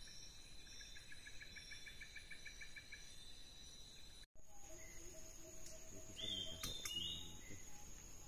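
Forest insect chorus: several steady high-pitched trills and a rapid pulsing chirp. About four seconds in, the sound cuts abruptly to another forest chorus: a single steady high insect drone with short bird whistles and calls.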